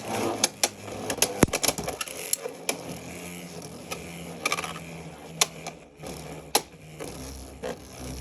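Beyblade X spinning tops battling in a plastic stadium: a string of sharp, irregular clacks as they collide, over a faint steady whir of the spinning tops.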